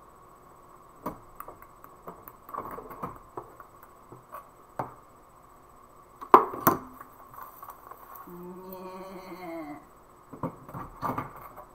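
Clicks and knocks of a clear plastic storage box being handled and set on a table, the loudest a pair of knocks about halfway through, with a run of clicks near the end as it is opened. A short hummed note from a woman about two-thirds of the way through.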